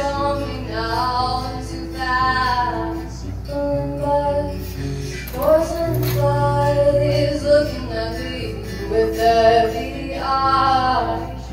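Teenage girl singing a song and accompanying herself on acoustic guitar.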